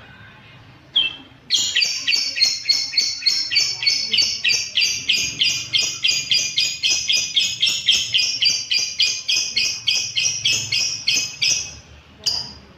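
Lovebird giving its long ngekek song: a short call, then an unbroken chatter of sharp repeated notes at about four a second lasting around ten seconds, fading out with a single call near the end.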